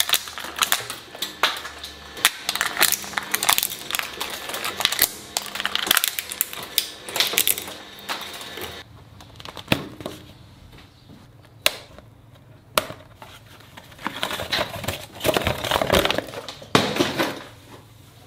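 Shredder's interlocking steel cutter discs chewing through a piece of orange rubbery toy: a dense run of crackling and snapping that stops about nine seconds in. After it come a few single sharp clicks and a stretch of rustling handling noise.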